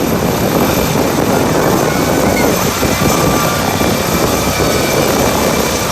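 Doctor helicopter's rotor and turbine engine running, mixed with loud wind buffeting on the microphone.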